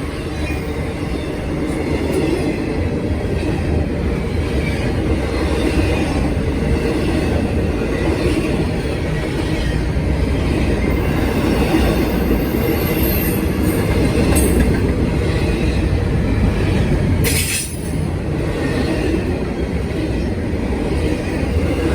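Norfolk Southern freight train rolling past, a steady loud rumble of wheels on the rails, with a brief sharp metallic noise about 17 seconds in.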